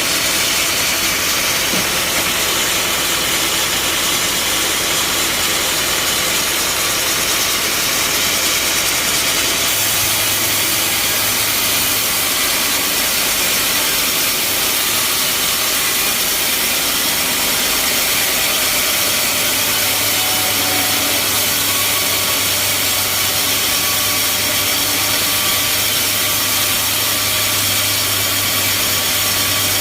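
Band sawmill running loud and steady, its blade sawing through a mahogany log, with a low hum that comes in about ten seconds in and again from about two-thirds of the way through.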